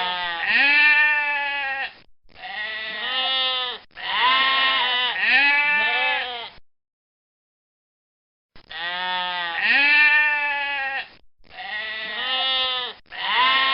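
Sheep and goats bleating, several wavering calls overlapping in bouts, with a break of dead silence for about two seconds midway.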